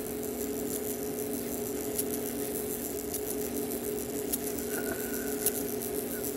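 Hubert Herr cuckoo clock movement's strike train running with a steady whir and a few scattered clicks. It keeps running on until it is stopped by hand.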